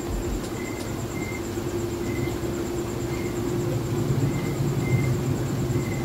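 Samsung WA12T5360BV top-load washing machine's digital inverter motor spinning the drum in the spin-dry phase: a steady hum over a low rumble that grows louder about halfway through.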